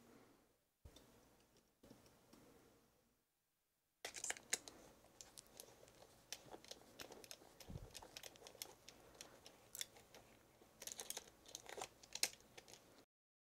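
Faint handling of a brass padlock in silicone oven mitts: small irregular clicks and scrapes of a metal tool worked against the lock, with the rubbing of the mitts. It begins about four seconds in, after a nearly silent start.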